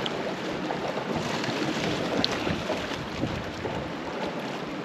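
Steady wash of the sea against a rocky cliff shore, mixed with wind on the microphone, with a faint click about two seconds in.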